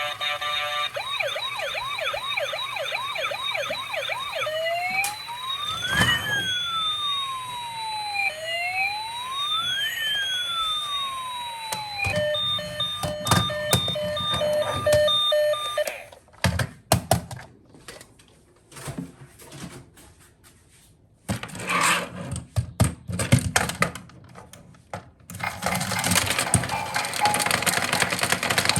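Electronic toy siren sound: a fast warble, then a slow rising and falling wail, then a run of steady beeps. After that come scattered clicks and knocks of toy parts being handled.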